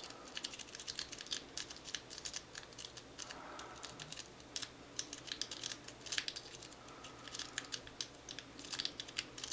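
Snake rake scraping in and out of the keyway of a small Master Lock 141D padlock, the pins giving faint, rapid, irregular clicking as the rake is worked.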